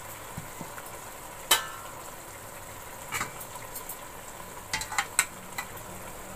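Steady faint sizzle of spinach and potatoes cooking in a steel pot, with a few light metallic clinks, the clearest about a second and a half in with a short ring.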